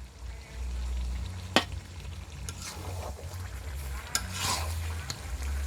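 Food frying in a pan, stirred with a utensil that clinks and scrapes against the pan, with a sharp clink about a second and a half in.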